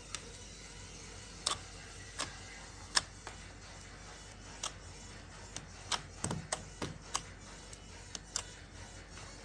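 Homemade slime being squeezed and worked by hand, giving irregular sharp clicks and pops, with a duller squelch or two a little past the middle.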